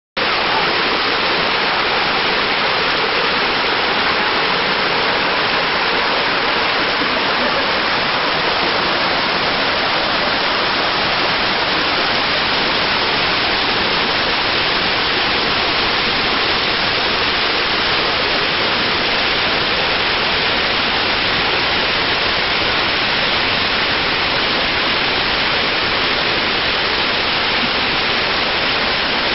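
Waterfall pouring steadily: a dense, even rush of falling water that cuts in abruptly at the start and holds unchanged.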